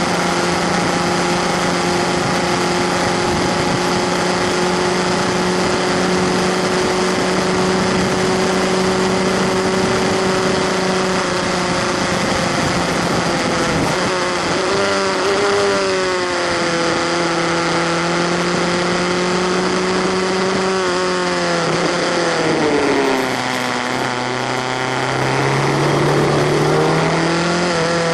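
Skip Barber 2.0-litre formula car's engine heard onboard from the open cockpit, running at steady high revs along the banking. Past halfway the pitch wavers and drops as the car slows for the infield turn, then climbs again near the end as it accelerates out. Air and tyre rush run underneath throughout.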